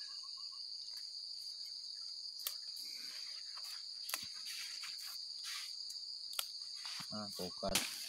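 Steady high-pitched insect chorus droning without a break. A few soft clicks sound over it, with a short cluster of handling or rustling sounds near the end.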